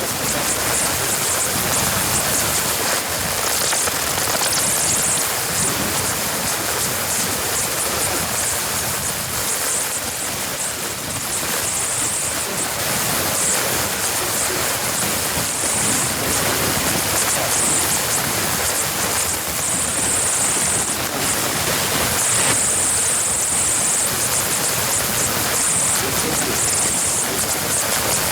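A steady rushing noise, like rain or running water, with a high hiss that swells and fades every few seconds.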